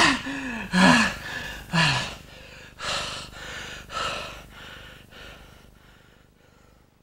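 A man's strained groans of effort, two of them falling away in pitch about one and two seconds in. Then come heavy, breathy gasps about once a second, growing fainter until they die out near the end.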